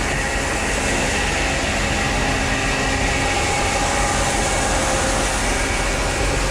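Grain dump truck's engine running steadily while its hydraulic hoist raises the dump bed to unload corn.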